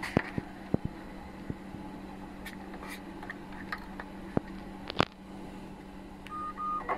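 Steady low electrical hum with scattered light clicks, one sharper click about five seconds in, and a few short high beeps near the end.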